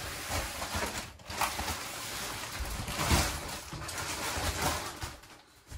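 Plastic wrapping crinkling and rustling in uneven swells as a wrapped, compressed foam mattress is unfolded and pushed flat onto a bed.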